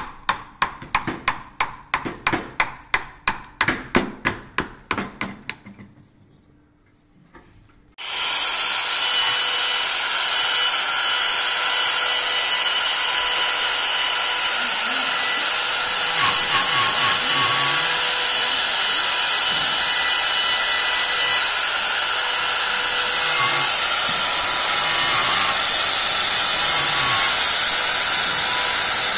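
A mallet drives a carving gouge into a wooden furniture leg, about three sharp knocks a second, for the first six seconds. After a short pause, a handheld rotary carving tool with a burr bit starts about eight seconds in. It runs steadily with a high whine as it grinds into the wood.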